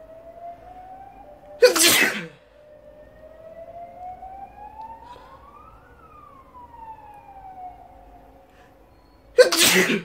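Two loud, short sneezes, one about two seconds in and one near the end, set off by poking a rolled tissue into the nostril. Between them a faint siren rises slowly in pitch and falls away again.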